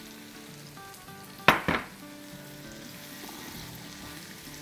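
Chopped ridge gourd in oil sizzling gently in a hot wok just after a splash of water, added to bring the pan's temperature down, while a spatula stirs it. One sharp knock about a second and a half in.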